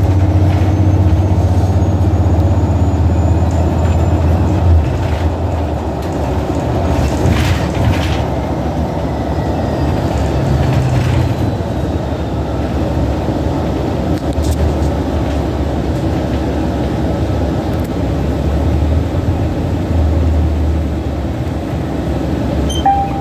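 Cabin ride noise of a 2014 New Flyer XDE60 diesel-electric hybrid articulated bus: a steady low drone from the engine and drivetrain that swells and dips several times, over road noise, with a few brief clicks and rattles from the fittings. A short high beep sounds right at the end.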